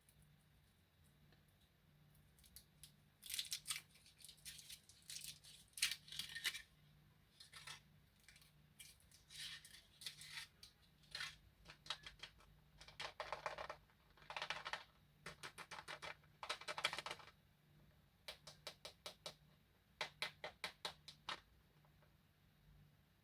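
Close-up handling of candy and its plastic packaging: bursts of crinkling and clicking, with runs of quick taps near the end.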